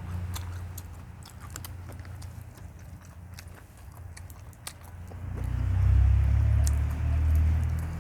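A person chewing and biting food close to the microphone, with crisp crunches scattered throughout. A heavy low chewing rumble grows much louder a little after the midpoint.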